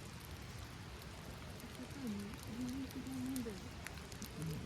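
Steady patter of rain with scattered light ticks, and a brief low murmured voice in the middle.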